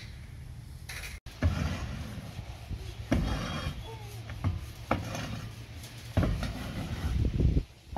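A push broom scraping across a plywood roof in several strokes, the last one longest.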